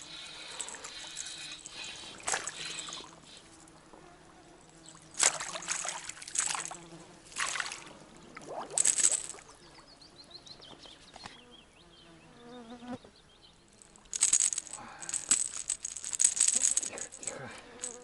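Water splashing in several short bursts, with quieter gaps between them, in shallow weedy water while a pike is being fought and landed.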